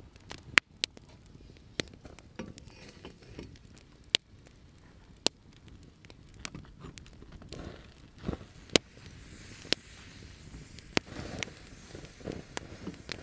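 Wood campfire crackling, with irregular sharp pops about once a second over soft rustling.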